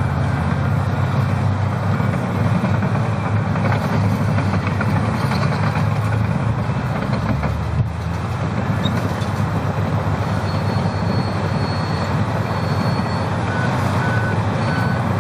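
Heavy diesel earthmoving machines (Komatsu dozers and Caterpillar 657 scrapers) working, a loud steady low engine rumble. A back-up alarm beeps in short repeated tones near the end.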